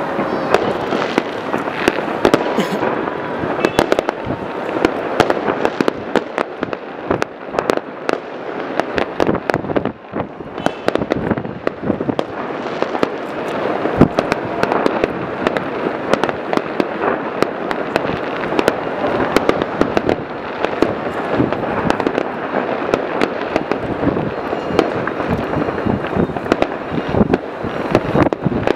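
Skyscraper-mounted New Year fireworks going off in a dense, continuous barrage of overlapping bangs and crackles, with one sharper bang about halfway through.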